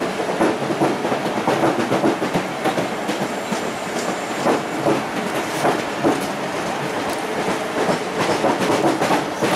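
Train running past at speed, its wheels clacking over rail joints: many sharp knocks over a steady rumble.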